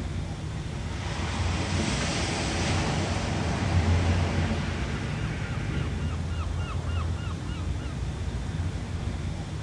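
Ocean waves washing in, one swell building to its loudest about four seconds in, over a steady low rumble of surf. Around six seconds in, a quick run of short, repeated chirps rides over the waves for about two seconds.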